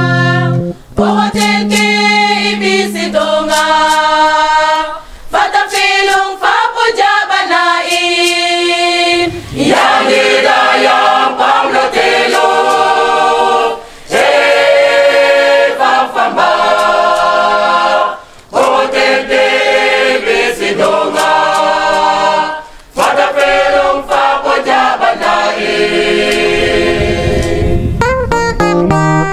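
Church choir singing a hymn in several long phrases with short breaks between them.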